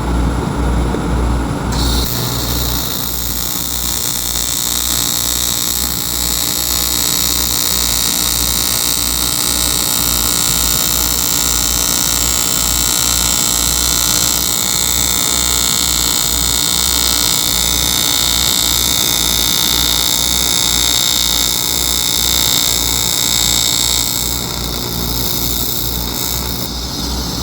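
AC TIG welding arc on aluminum plate: a steady loud hiss and buzz that strikes about two seconds in, runs on over a pulsing low hum, and weakens near the end as the arc is eased off.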